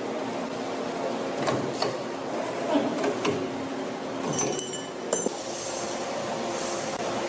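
CNC tube bender running its cycle: a steady machine hum with a few sharp metallic clicks and clanks. One clank rings briefly, like struck metal tubing, about four and a half to five seconds in.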